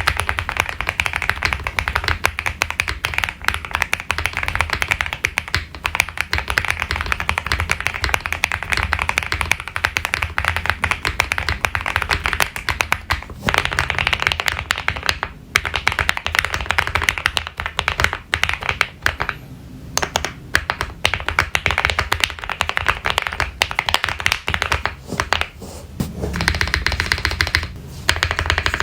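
Continuous fast typing on a Meletrix Zoom65 mechanical keyboard with lubed and filmed switches and PBT keycaps: a dense clatter of keystrokes, broken by a few short pauses.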